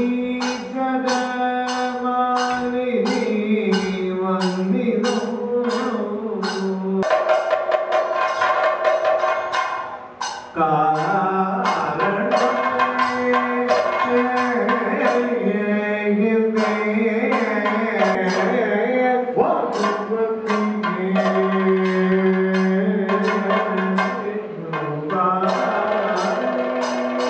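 Live Kathakali accompaniment: a male singer's long, held chanted lines over a steady beat of sharp percussion strikes, with a brief break about ten seconds in.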